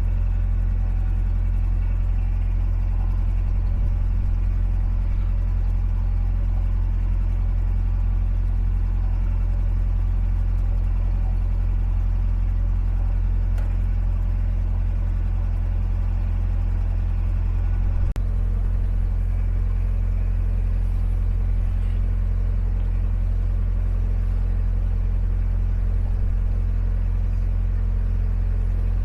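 Narrowboat's diesel engine running at a steady cruising speed, a constant deep drone.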